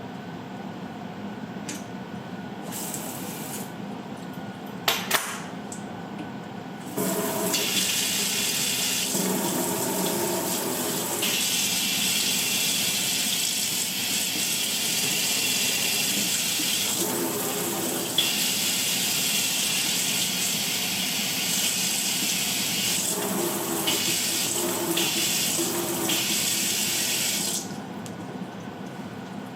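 Kitchen faucet running water through a pull-down spray head, starting about seven seconds in and shutting off shortly before the end, with the sound of the flow shifting a few times along the way. Before the water comes on there is a sharp click.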